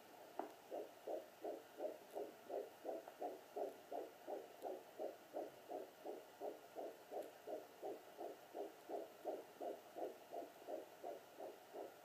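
Fetal heartbeat picked up by a Sonoline B handheld fetal Doppler and played through its speaker: a fast, even pulse of about two and a half beats a second (around 150 a minute) over a faint hiss. The beat locks in about half a second in.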